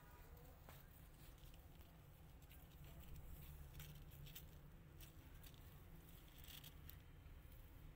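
Near silence over a low steady hum, with faint scattered scratches and pattering: kittens' paws and claws on a plastic pet carrier as they clamber in against their mother.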